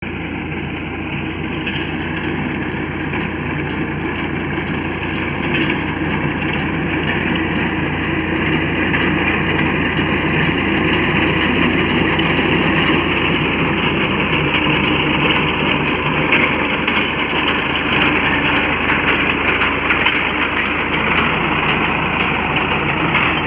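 Farmtrac 45 tractor's three-cylinder diesel engine running steadily as it drives a front-mounted wheat reaper through the crop, growing louder over the first ten seconds or so as it comes closer, then holding steady.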